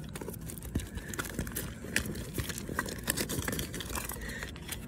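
Hand rummaging through a purse: irregular small clicks, taps and rustles as the contents are moved about.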